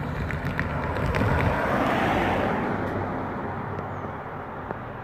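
A car passing along the road, its tyre and engine noise swelling to a peak about two seconds in and then fading away.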